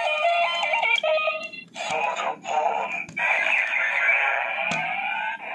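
Bandai DX Den-O Belt toy playing electronic sounds through its small speaker during a transformation. It first plays a stepping standby melody of beeping tones, then after a click about a second in it plays transformation effects with rising tones, which cut off just before the end.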